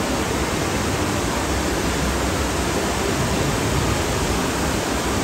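Steady, even rush of pumped water flowing over an indoor surf simulator.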